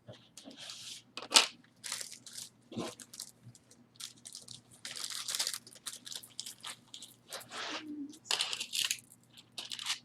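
Hands handling jewelry and packing, close to the microphone: irregular crinkling and rustling with scattered clicks, the loudest a sharp click about a second and a half in.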